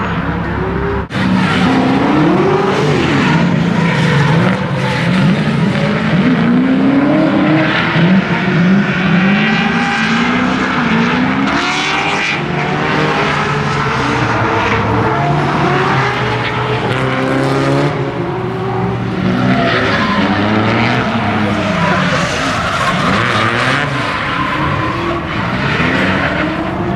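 Drift cars sliding around a track: several engines revving up and down over and over, over a continuous screech of spinning tyres.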